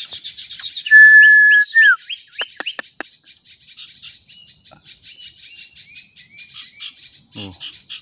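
Sirtu birds calling: one loud, clear whistle held about half a second, then a short down-slurred note, a few sharp clicks, and a run of quick falling chirps, with insects trilling steadily behind.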